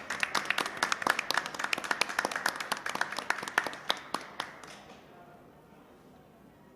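A small group applauding, with single claps standing out, thinning and dying away about five seconds in.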